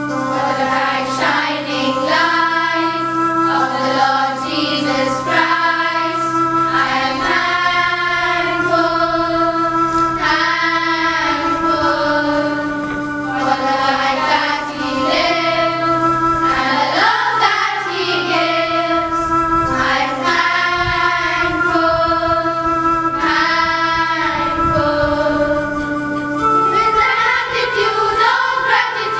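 A group of children singing a song in unison, with keyboard accompaniment.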